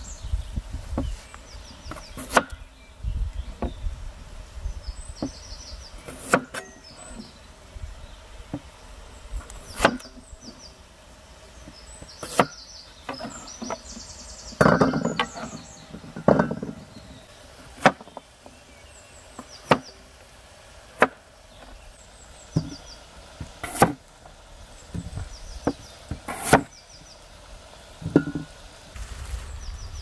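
Irregular sharp chopping strokes on wood, one every second or two, some with a dull thud, like a blade striking a wooden board or block.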